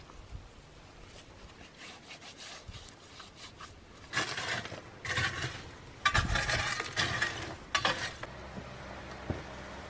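Hands handling a raw plucked turkey make several loud rubbing bursts, the loudest about two thirds of the way through. Near the end a wooden stick stirs hot coals in a clay tandoor, more faintly.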